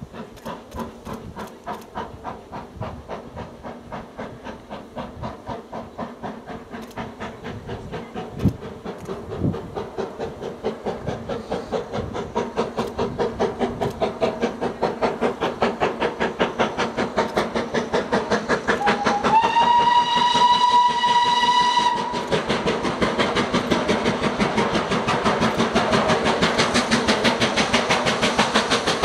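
Steam locomotive approaching under power, its exhaust beating in a regular rhythm that grows louder as it nears. About two-thirds of the way in it sounds one steam whistle blast of about three seconds, sliding up briefly before holding steady.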